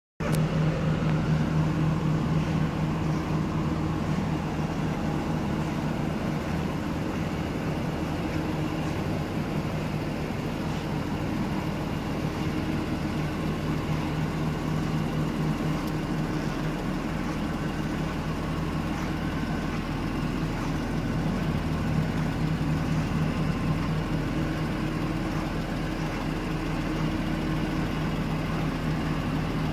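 1991 Acura NSX's mid-mounted 3.0-litre V6 idling steadily.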